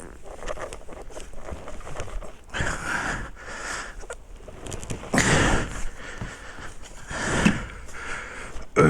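A person breathing heavily close to the microphone: a run of loud, rough breaths about every one and a half to two seconds.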